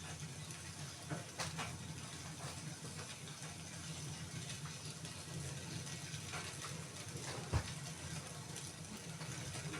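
Wood fire in a fireplace crackling, with scattered snaps and pops over a low steady hum; one sharper pop a little past seven seconds in.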